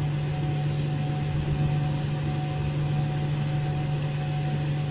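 Steady low machine hum, with faint higher steady tones above it.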